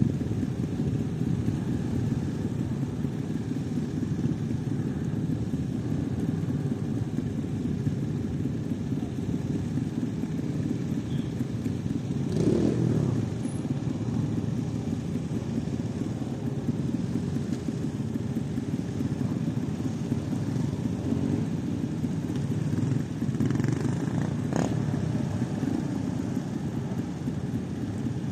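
Trials motorcycle engines running steadily at idle, with one brief rev about twelve seconds in and a sharp click near the end.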